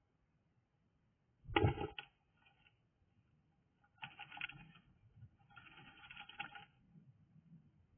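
A bird moving about and working nest material inside a nest box: a knock about one and a half seconds in, then two bouts of scratchy rustling.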